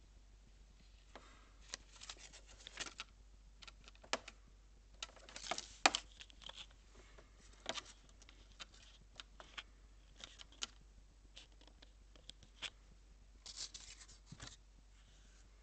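Faint, irregular rustling with small clicks and scrapes in scattered clusters: light handling noise, like paper being moved and small movements on a hard floor.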